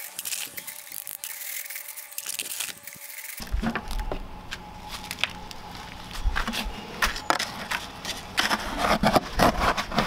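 Hardened lumps of Portland cement scraped and crumbled through a wire mesh screen with a trowel and gloved hand: a run of gritty scrapes and light clicks, with a scoop also scraping inside the bucket.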